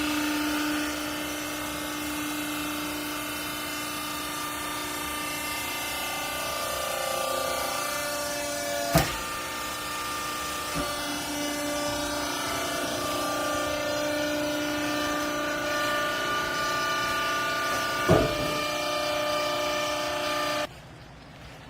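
Hydraulic baler's motor and pump running, a steady whine of several tones whose pitch shifts as the press works, with two sharp clanks about halfway and near the end. The sound cuts off suddenly shortly before the end.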